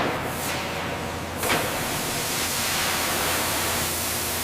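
Steady rushing hiss of molten steel pouring into foundry molds, with a brief swell about a second and a half in.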